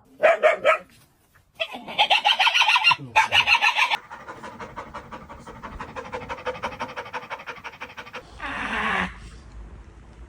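A dog making odd vocal sounds: a few bursts of rapid, stuttering pitched pulses, then a quieter run of rapid even pulses, and a short falling cry near the end.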